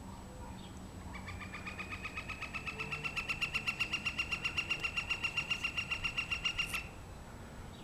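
A woodpecker's long, rapid series of evenly spaced notes, about seven a second, rising a little in pitch and growing louder, then stopping suddenly near the end.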